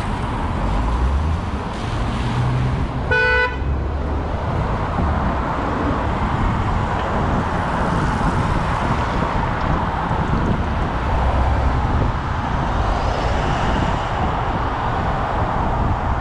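Steady city road-traffic noise with one short car horn toot about three seconds in.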